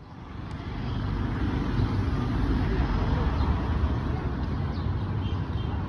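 Street noise: a steady rumble of passing traffic with indistinct voices.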